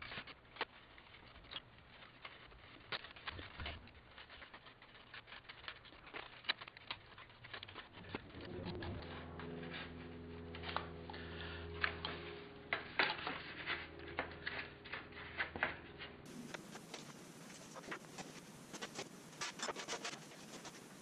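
Utility knife whittling a wooden kayak stringer: faint, irregular small cuts, clicks and scrapes as bits of wood are shaved away. A steady low hum joins for several seconds midway.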